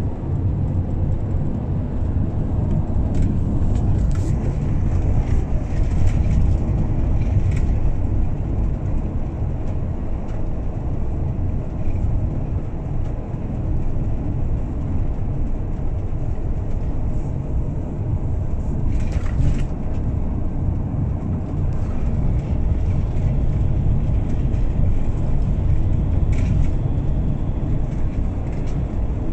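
Car driving along a cracked asphalt road, heard from inside the cabin: a steady low rumble of engine and tyres, with a few brief knocks along the way.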